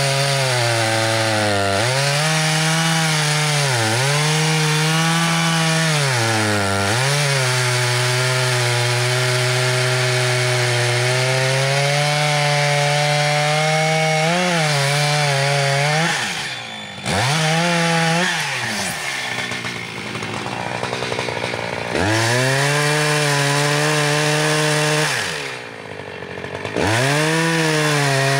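Echo Timberwolf two-stroke chainsaw cutting into a large red oak log, running at high revs and pulling down in pitch every couple of seconds as the chain bites. In the second half it eases off twice, briefly, then revs back up into the cut.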